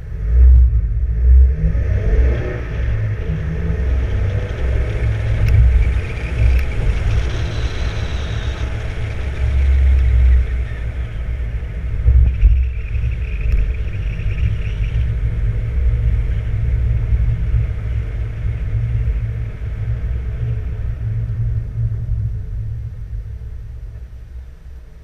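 Mk3 Toyota Supra's 1JZ-GTE VVT-i turbocharged inline-six pulls away from a standstill with a sudden jump to a loud, deep exhaust rumble. It accelerates hard with a rising whine over the first several seconds, then eases off and quietens near the end.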